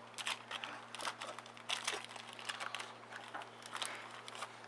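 Foil trading-card pack wrapper crinkling as the pack is torn open and the cards pulled out, an irregular run of short crackles.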